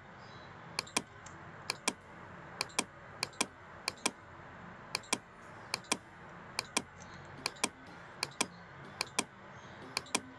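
Sharp clicks from a computer's input devices, mostly in quick pairs about once a second, over a faint steady hiss.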